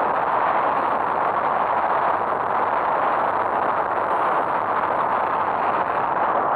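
Steady rushing airflow over a camera mounted on a model aircraft in flight, an even noise with no distinct engine or motor tone standing out.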